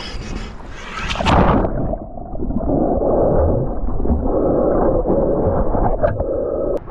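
A splash into the sea about a second in, then about five seconds of muffled underwater rushing water as the microphone stays submerged. The open-air sound returns just before the end.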